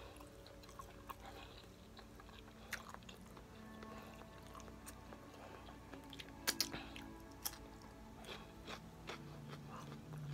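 Close-up biting and chewing of a raw cucumber spear, with a few sharp crisp crunches, the loudest about six and a half seconds in.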